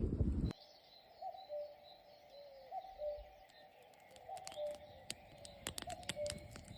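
A loud low rumble cuts off suddenly half a second in. Then a bird repeats a low two-note call, the first note higher than the second, about every second and a half, four times, with faint higher chirps and ticks from other small birds.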